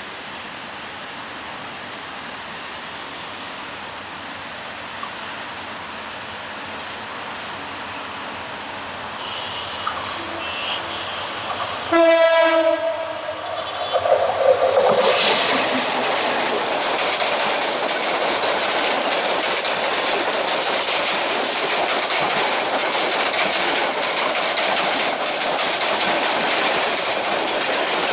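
A Rotem-built EMD GT18LA-2 metre-gauge diesel locomotive hauling a passenger train draws closer with a growing rumble and gives one short horn blast about twelve seconds in. It then passes close by at speed, and the coaches run by with a loud, steady clatter of wheels on the rails.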